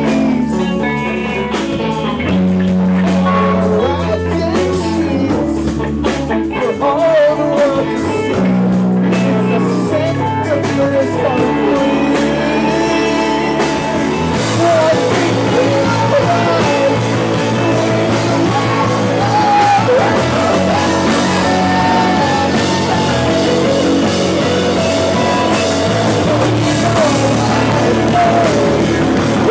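Live rock band playing: electric guitar, bass and drum kit, with singing.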